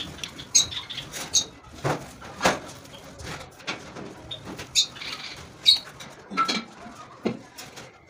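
Cage birds flapping and fluttering inside a wire cage as they are reached for and let out, with scattered knocks against the cage and a few short high chirps.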